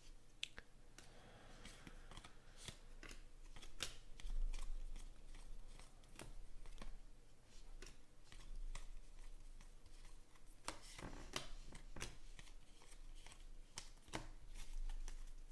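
A stack of trading cards being flipped through by hand, with irregular soft clicks and flicks as the cards slide and snap against one another.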